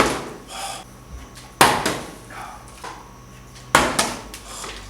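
A bottle thrown in bottle flips striking a hard surface three times, each a sharp knock that dies away quickly, about two seconds apart.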